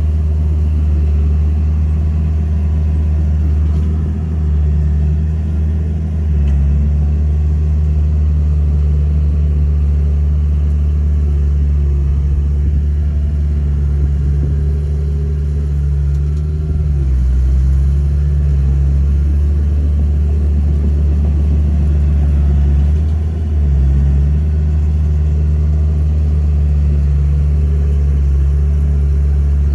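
Bulldozer diesel engine running steadily under load, with a deep, even drone that sags briefly in pitch a few times as the load changes.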